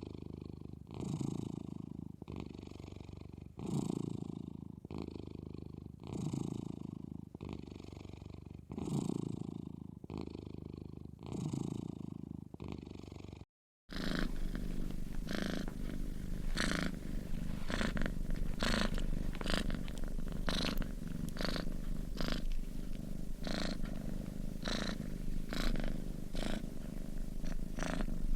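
Sleeping domestic cat snoring, one slow rhythmic breath about every two and a half seconds. About halfway through the sound breaks off briefly, and a denser, continuous purr-like rumble follows, with a low hum underneath.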